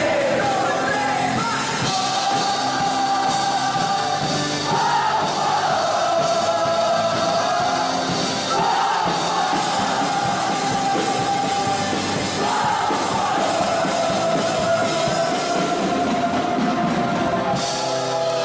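Rock band playing live, with a singer holding long notes over drums and electric guitars.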